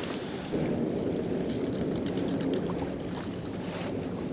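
River water lapping at the shoreline, with wind buffeting the microphone; the rushing gets a little louder about half a second in.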